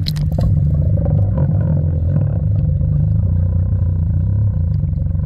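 A splash as a swimmer plunges in, then the loud, steady, muffled low rumble of water heard through a submerged camera as the swimmer glides past trailing bubbles.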